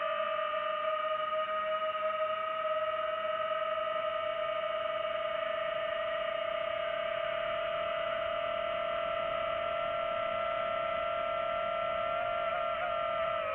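FPV quadcopter motors whining at a steady, high pitch under constant throttle. The pitch drops sharply at the very end as the throttle comes off.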